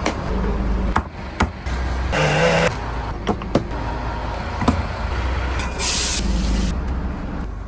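Steady low engine rumble with several sharp knocks and two short bursts of hissing, one about two seconds in and one about six seconds in.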